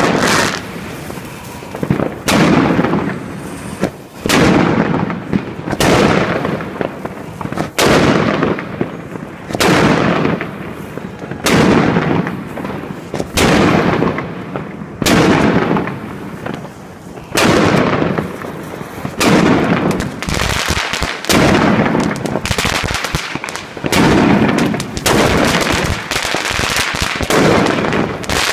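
Consumer fireworks cake (Evolution Fireworks 'The Golden Age', 160 shots) firing shot after shot, about one every two seconds. Each shot is a sharp launch bang followed by a burst of crackle that fades away.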